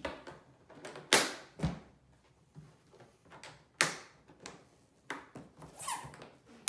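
The latches and lid of a hard cello case being opened, heard as a series of sharp clicks and knocks. The loudest comes about a second in, and another strong one comes near four seconds.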